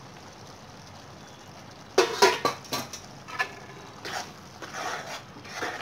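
A metal spoon stirring curd into chicken gravy in a pan, knocking and scraping against the pan in irregular strokes that start about two seconds in, after a faint steady hiss.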